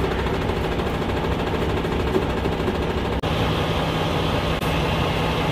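Truck engine idling close by, a steady low rumble with a rapid, even rattle.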